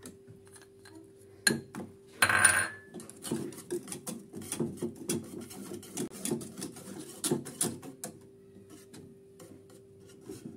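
Wire whisk stirring chocolate into a thick hot custard in an aluminium saucepan, its wires clicking and scraping rapidly against the pan. A brief rasp about two seconds in, then quick strokes from about three to eight seconds in that thin out near the end.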